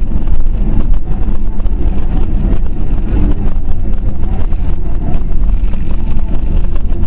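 Loud, steady low rumble of a moving car's engine and road noise, as picked up by a dashboard camera's microphone.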